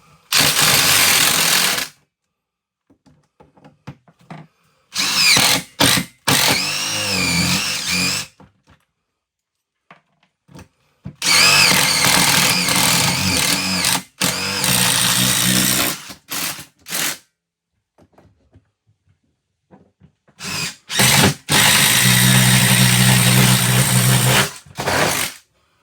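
Power drill run in four bursts of a few seconds each, trigger pulled and released, its whine wavering in pitch during some bursts.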